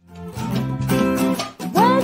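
A small band's music starting up out of silence, led by strummed acoustic guitar over steady low notes. Near the end a pitch slides upward.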